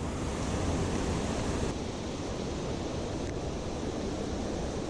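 Steady rushing of river water below a dam, an even hiss with no distinct events.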